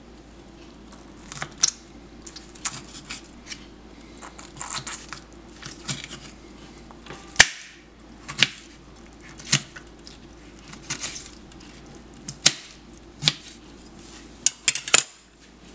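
Chef's knife slicing a chile pepper on a plastic cutting board: irregular sharp knocks of the blade on the board, with soft cutting rustles between them. The loudest knock comes about halfway through, and there is a quick run of knocks near the end.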